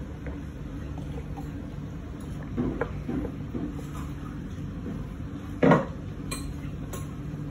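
Crockery clinking a few times over a steady low hum, with one louder knock a little past two-thirds of the way through.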